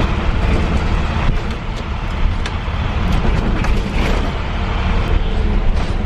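School bus cabin noise while driving: a steady low engine and road rumble, with scattered rattles and clicks from the bus body.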